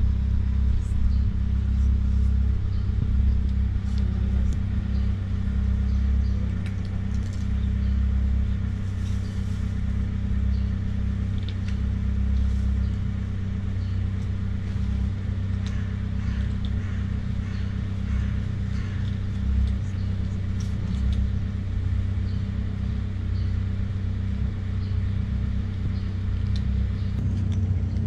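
A steady low mechanical rumble, with faint scattered ticks of cats crunching dry kibble.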